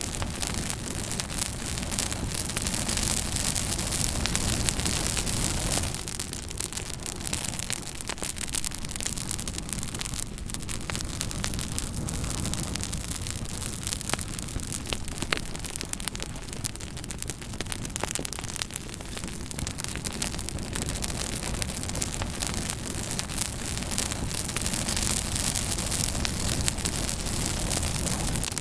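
Fire crackling: a steady hiss thick with small, quick crackles, with a few sharper pops about ten and fifteen seconds in.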